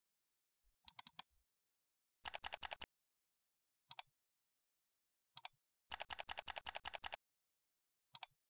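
Computer mouse clicks and keyboard typing. A few quick clicks come about a second in, then a short run of keystrokes, single clicks, and a longer run of rapid typing, with dead silence between.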